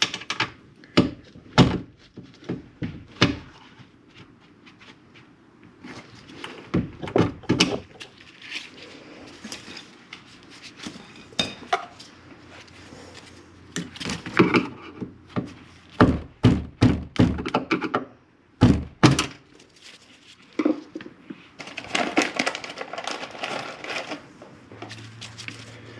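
Irregular knocks and clicks of a replacement speaker and rivets being handled and fitted against a car door's inner panel, with a busier patch of clatter about 22 seconds in.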